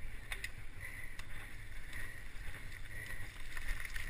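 Mountain bike rolling fast over a muddy trail, heard from a camera on the bike: a steady rumble of tyres and wind, with a few short sharp rattles from the bike.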